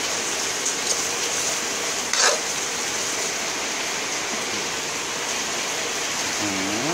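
Steady rain falling, with a short knock about two seconds in.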